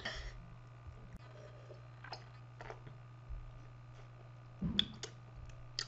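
Quiet room with a steady low hum and a few faint clicks, then, a little under five seconds in, a short louder knock with sharp clicks as a glass jar of milk is handled and drunk from.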